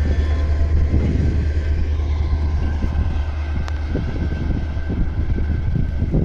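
Freight train of ethanol tank cars rolling past, a steady low rumble with wind buffeting the microphone and a faint thin whine of wheels on rail.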